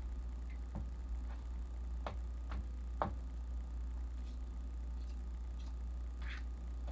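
A spoon stirring thick banana bread batter in a mixing bowl: scattered clicks and taps of the spoon against the bowl, the sharpest about three seconds in, with a brief scrape near the end, over a steady low hum.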